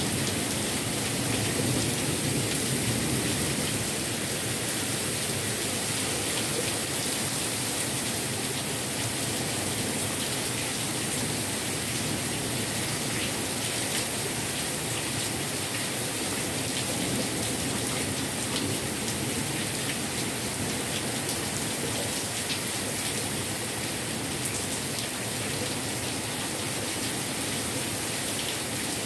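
Heavy rain pouring steadily through a tree's leaves onto a lawn and street: an even hiss with scattered close drips.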